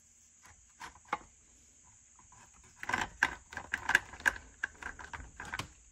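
Light clicks and rattles of metal being handled as a chainsaw bar is moved about over a pile of saw parts: a few scattered clicks about a second in, then a busier run of clicking from about three seconds in until near the end.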